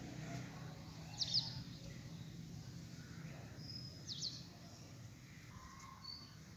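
Small birds chirping faintly: a quick cluster of downward-sweeping chirps about a second in and another about four seconds in, with a few thin short whistles between, over a low background hum that fades.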